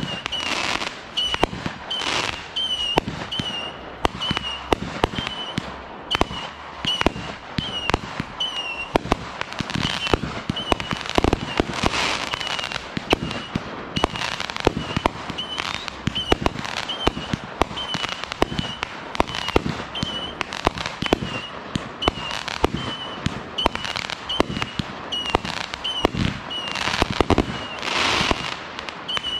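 Consumer aerial fireworks, a multi-shot cake firing from one spot: a rapid barrage of sharp launch bangs and shell bursts, one to three a second. A short high chirp repeats about once a second behind the bangs.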